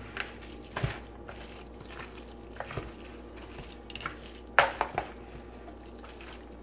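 Slotted plastic spoon stirring and chopping a thick, moist cornbread dressing mixture in a large bowl: scattered soft scrapes and knocks against the bowl, the loudest a little past halfway.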